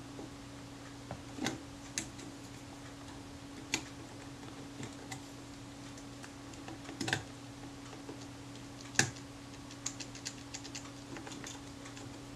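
Small, irregular metal clicks and taps as the front lens-and-shutter standard of a Rolleiflex Automat TLR is worked down by hand onto the camera body, seating onto the coupling for the shutter's speed and aperture rings. The sharpest clicks come about 7 and 9 seconds in, with a quick run of lighter ticks after that.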